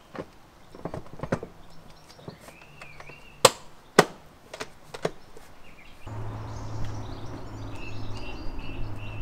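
Hard side case being fitted to a Yamaha Tracer 9 GT: light knocks and scrapes, then two sharp clicks about half a second apart as the case is pressed home onto its mount. Birds chirp now and then, and from about six seconds in a steady low hum sets in.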